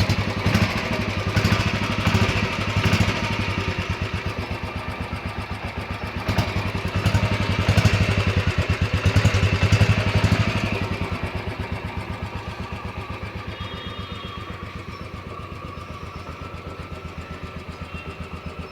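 Royal Enfield Classic 350 twin-spark's single-cylinder engine running, its exhaust beating evenly. It is revved in short blips early on and again for a longer stretch in the middle, then settles back to a steady idle.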